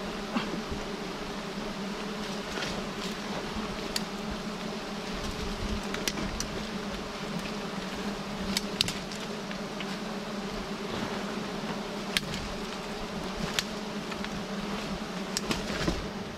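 A swarm of giant honeybees buzzing in a steady, dense hum, with scattered sharp ticks throughout.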